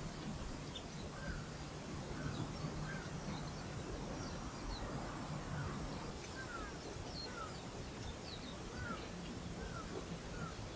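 Birds calling: short chirps repeating irregularly, roughly one or two a second, over a low steady hum.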